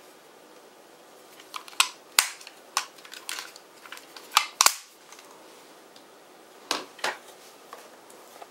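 Sharp plastic clicks and snaps as a plastic clock's fold-out hanging hook is swung open and its case handled. The loudest snaps come just before the middle, and two more knocks follow near the end as the clock is set down.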